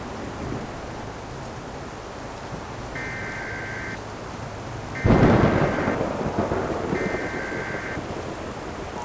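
Steady rain with one loud clap of thunder about five seconds in that rumbles away over a couple of seconds. Over it come three one-second bursts of buzzy Emergency Alert System data tones, a second apart: the coded header that opens a broadcast tornado warning.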